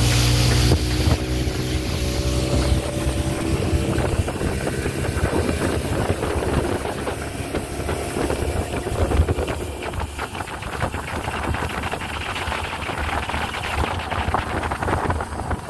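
A river boat's engine running steadily, with wind buffeting the microphone and water rushing along the hull. The engine hum is plainest in the first few seconds and then fades under the wind and water noise.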